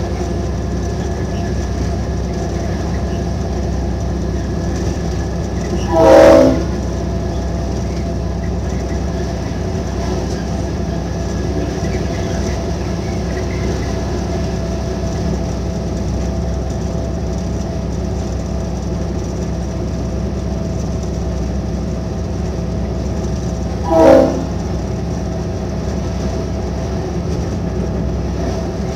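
V/Line N class diesel-electric locomotive heard from its cab: a steady engine drone while the train runs along the track, broken by two short horn blasts, one about six seconds in and another some eighteen seconds later. The horn blasts are the loudest sounds.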